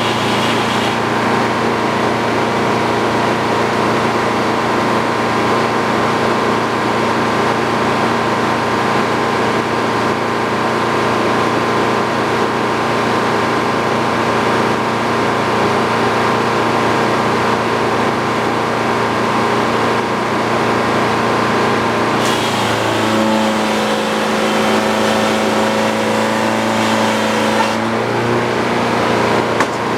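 Sawmill engine running steadily. For about five seconds near the end its note changes to a different, lower set of tones before returning.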